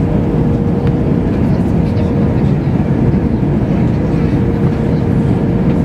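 Airbus A321 cabin noise on final approach with flaps extended: a steady deep rumble of the jet engines and rushing airflow, with a faint steady hum.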